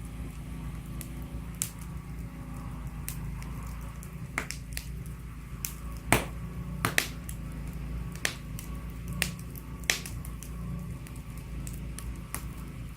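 Wood fire crackling in a fireplace: irregular sharp pops and snaps, about a dozen, the loudest about six seconds in, over a steady low rumble.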